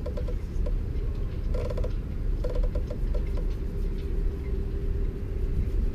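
Cloth rubbing on the chrome-plated drum of a Lewmar sailboat winch, squeaking in short rhythmic bursts three times, over a steady low rumble.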